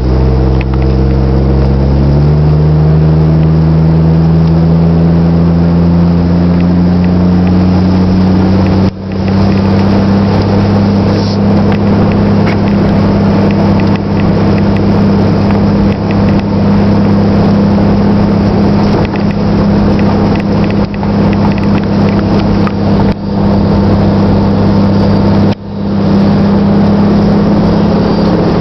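1997 Jeep Grand Cherokee ZJ's 4.0-litre straight-six running through a glasspack muffler in place of the factory muffler. It accelerates, rising in pitch over the first several seconds, then runs steadily at cruising speed, with brief drops in level about nine seconds in and again near the end.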